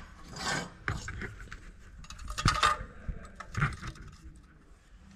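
Several light metal clinks and scrapes from handling a car headlight in its metal mounting bucket and a chrome trim ring on a workbench, the loudest about two and a half seconds in.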